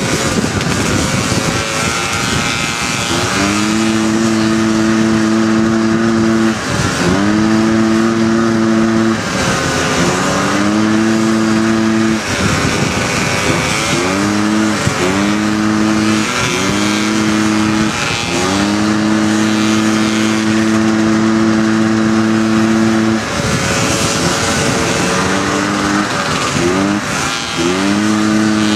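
Honda FL350 Odyssey dune buggy's single-cylinder engine running hard at a steady high pitch while driving fast on a dirt track. The throttle is lifted and reapplied again and again, about a dozen times, each dip sweeping quickly back up to speed, over a steady rushing noise.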